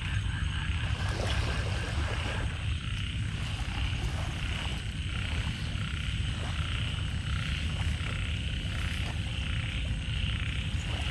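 Frogs calling in a night chorus, a pulsing call repeated about once a second, over a steady low rumble.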